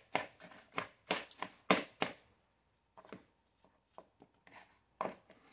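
A small knife cutting peeled apples held in the hand, the pieces dropping into a bowl. A quick run of sharp crunches and clicks comes in the first two seconds, then sparser, quieter ones.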